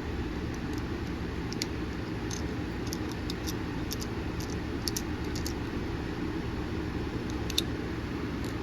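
Steady low hum of room noise, like an air conditioner, with scattered faint small ticks and clicks of small metal knife parts and tools being handled.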